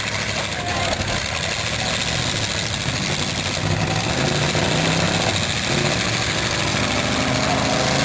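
Demolition derby cars' engines running loud, their pitch rising and falling as the drivers rev, over a steady wash of engine noise.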